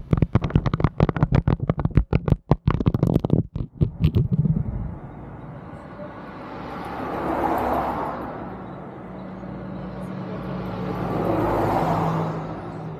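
A rapid run of sharp knocks and clatter for the first few seconds. Then road traffic: two vehicles pass by, one swelling up and fading about seven to eight seconds in and another near the end, over a steady low hum.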